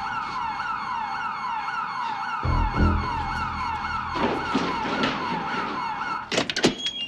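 An electronic alarm siren sounding a rapidly repeating falling tone, about two sweeps a second. It cuts off near the end, giving way to a quick run of sharp clicks and knocks.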